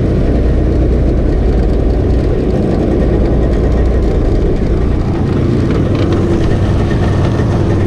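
Jet outboard motor on an aluminium jon boat running steadily, its lowest rumble easing somewhat about five seconds in.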